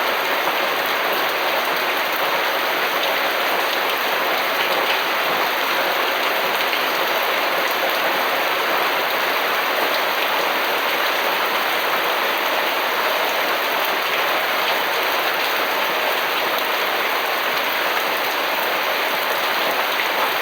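Steady rain falling, an even hiss that keeps on without let-up.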